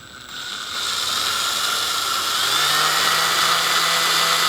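Power drill spinning up and running steadily as it bores a stop hole through the end of a crack in a plastic ice-auger gas tank.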